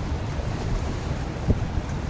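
Wind buffeting the camera microphone: an uneven, gusty low rumble, with one sharper bump about one and a half seconds in.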